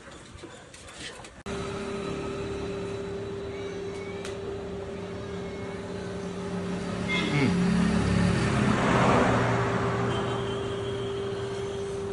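A few faint puppy yips, then a sudden change to a steady mechanical hum holding one tone. Near the middle a louder rushing sound swells up for a couple of seconds and dies away, like a passing motor vehicle.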